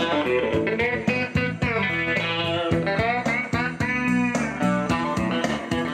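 Blues-style guitar music with a steady beat.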